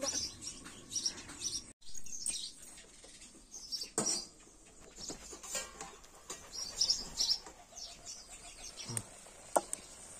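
Small birds chirping on and off, with a few sharp scrapes and clinks of a metal spatula stirring leafy greens in a metal wok.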